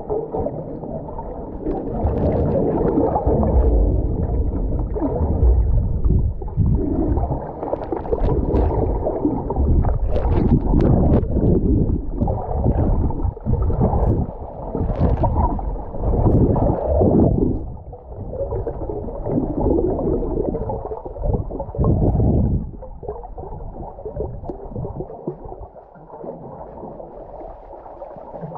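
Muffled underwater noise heard through an action camera's waterproof housing: irregular water sloshing and gurgling with scattered small clicks, dropping quieter in the last few seconds.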